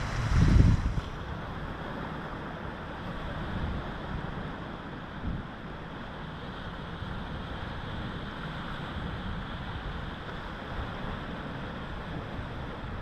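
Steady wash of sea surf with wind on the microphone. A loud low buffet of wind in the first second, then an even rushing.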